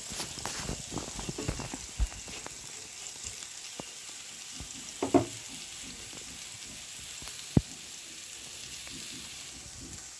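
Sliced onions and eggplant pieces sizzling in oil in a nonstick frying pan, a steady hiss throughout. A wooden spatula scrapes and clicks against the pan in the first couple of seconds, and a few single knocks come later.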